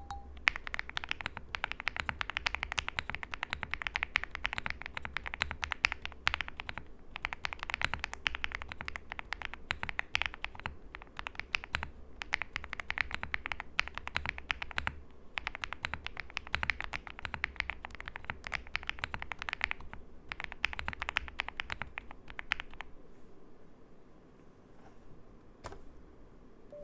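Custom mechanical keyboard being typed on in fast, continuous runs of keystrokes with a creamy, thocky sound, broken by a few brief pauses. Near the end the typing stops, leaving only a stray click or two.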